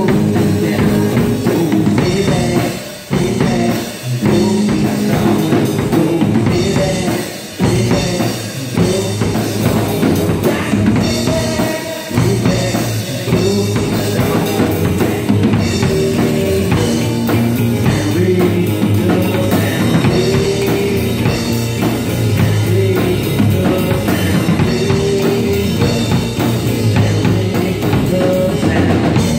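A live rock band playing electric guitars and a drum kit, with bass drum and snare hits driving a steady beat. The sound drops out briefly about 3 and 7 seconds in.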